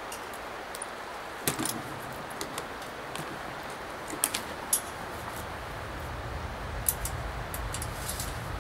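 Scattered sharp metallic clicks and clinks of saxophones being handled and readied, with a steady low rumble that grows louder about six seconds in.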